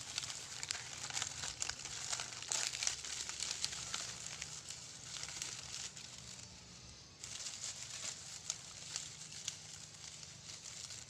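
Dense, irregular dry crackling and crinkling, thinning out after about five seconds, over a faint steady low hum.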